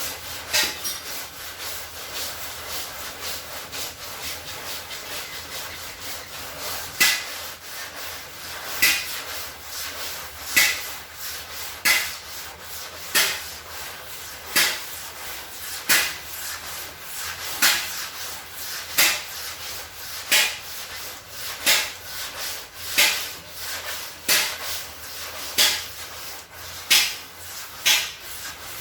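Sandpaper rubbing over a BMW's engine hood to level its surface. A continuous scratchy rubbing that, from about seven seconds in, settles into regular louder strokes roughly every second and a half.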